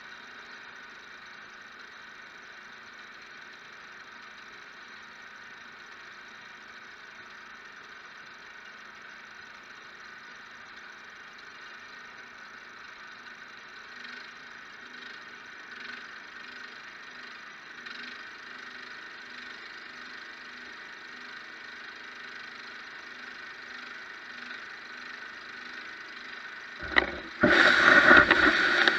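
A faint, steady mechanical hum, then, about two seconds before the end, a gutter-cleaning vacuum motor switches on and runs much louder.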